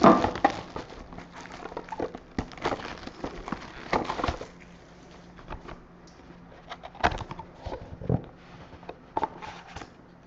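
Hands opening a cardboard trading-card box: scattered taps, scrapes and rustles of the cardboard being handled and its inner box pulled out, over a faint steady low hum.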